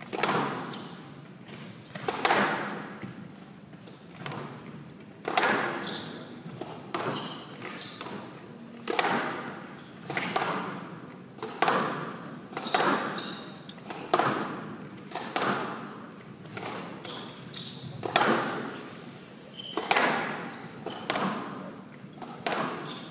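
Squash rally on a glass court: sharp echoing hits of the rubber ball off rackets and walls, about one every one to two seconds. Short shoe squeaks on the court floor come between the hits.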